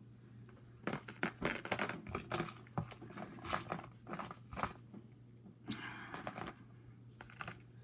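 Rummaging through a clear plastic storage tub of small squishy toys and keychains: an irregular string of short clicks and scrapes, with a longer rustle about six seconds in.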